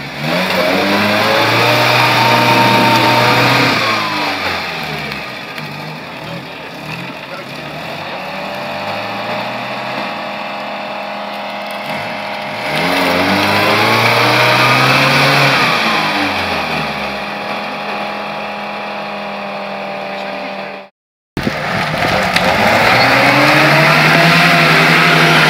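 UAZ-469 off-roader's engine revving hard under load in deep mud: twice the revs climb, hold and fall away, with steadier running between. After a sudden cut, the engine runs steadily at high revs as the UAZ ploughs through a bog.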